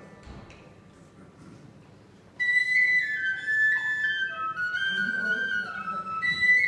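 After about two seconds of quiet room sound, a flute-type pipe comes in with a high, clear melody whose notes step downward, and a second phrase starts high again near the end.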